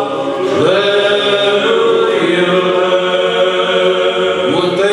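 Men's choir singing a Romanian colind (Christmas carol) in sustained, chant-like chords, with a new phrase swelling in about half a second in and another starting near the end.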